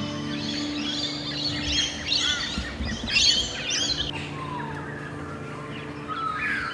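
Birds chirping and calling: a busy run of quick chirps and sweeping whistles in the middle, over low, steady held tones.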